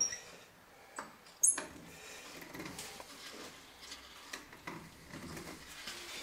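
Screw bar clamps being set and tightened on a glued board: a few sharp clicks and knocks of the metal clamp parts, one with a brief high squeak about a second and a half in, then faint handling noises.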